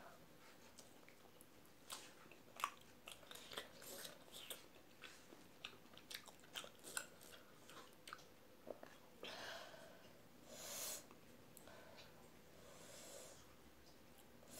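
A person chewing a mouthful of rice eaten by hand, with many small wet mouth clicks and smacks. Near the end come two longer breathy hisses.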